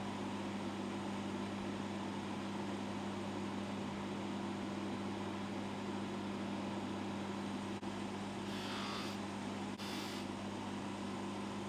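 Bench polishing motor running with a cloth buffing wheel spinning, giving a steady low hum. Near the end there are two brief hisses.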